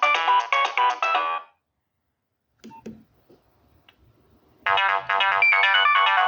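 Nokia 6030 polyphonic ringtone playing through the phone's speaker, cutting off about a second and a half in. After a pause with a few faint clicks, another ringtone starts abruptly near the end.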